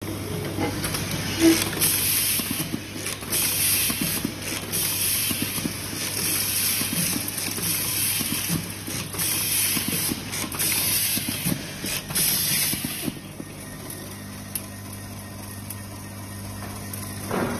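Air-blow-fed automatic screwdriver machine at work. Repeated bursts of compressed-air hiss as screws are blown to the driver, over a steady machine hum. The hiss stops about thirteen seconds in, leaving the hum.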